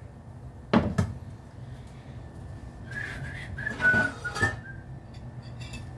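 A sharp clack from cookware at the stove just under a second in, with a second knock right after. A few seconds later comes a brief high whistling with some hiss.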